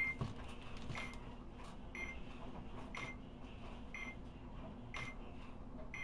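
Phoenix LTX laser tag gun, switched on, giving a short high electronic beep about once a second, with a few light clicks of plastic parts being handled.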